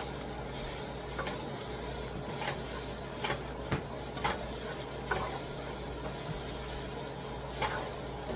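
Wooden spatula stirring shredded red cabbage and pork in a nonstick skillet over a gas flame: a few short scrapes and taps against the pan over a soft steady sizzle.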